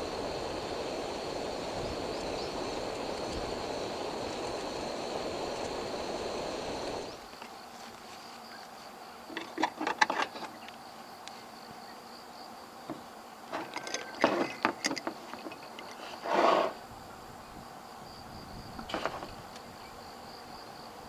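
Crickets chirping in one steady high trill. For about the first seven seconds a steady rushing noise covers them, then it stops abruptly. A few short clinks and clatters of coffee gear being handled follow, the loudest about two-thirds of the way through.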